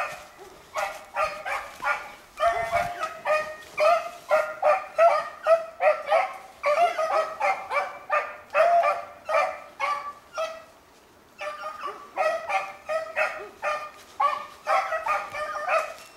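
Beagles baying on a rabbit's trail: a fast string of short, overlapping hound barks and bays, broken off for about a second just past the middle before they pick it up again.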